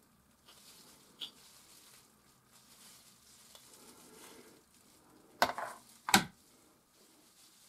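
Palette knife scraping and dabbing oil paint, a soft rasping that comes and goes, with two sharp knocks a little under a second apart about five and six seconds in.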